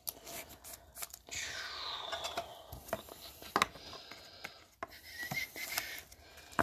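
A trading card in a soft plastic sleeve being slid into a rigid clear plastic top loader, with plastic scraping and rubbing against plastic and nitrile gloves. There is a rubbing scrape that falls in pitch, then a few light clicks.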